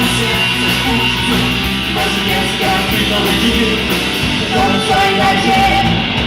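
Live rock band playing an instrumental passage between vocal lines: electric guitar, bass and drums, loud and steady.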